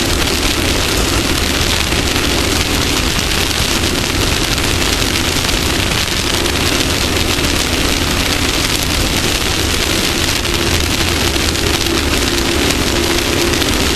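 Off-road race vehicle driving at speed: a steady engine drone buried under a loud, even hiss of wind and terrain noise.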